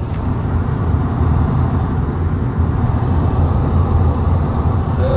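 Gas furnace running with its burners lit, giving a steady low rumble. The burner flame looks poor, which the technician takes as a sign of a possible breach in the heat exchanger.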